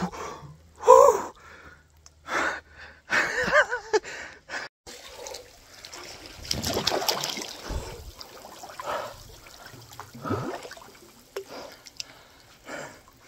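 A man gasping and breathing hard in short, sharp breaths from the shock of cold creek water, with water splashing around him.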